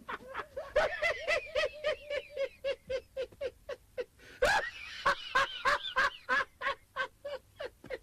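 A man laughing hard in a long run of rhythmic, cackling "ha-ha-ha" pulses, about four a second at first and slowing later. There is one sharp knock or slap about halfway through.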